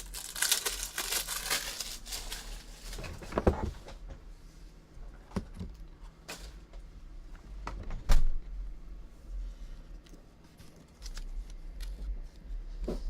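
Plastic crinkling and small clicks and knocks as trading cards and their packaging are handled, with a dense burst of crinkling in the first two seconds and a sharp knock about eight seconds in.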